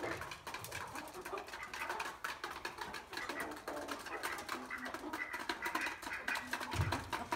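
Chickens and ducks calling in a poultry pen: a busy, overlapping mix of short calls, with a low rumble near the end.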